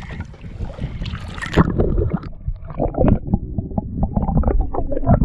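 Water splashing and sloshing around a speckled trout being released by hand. From about two seconds in the sound turns muffled and gurgling, with dull knocks, as the microphone goes under the water.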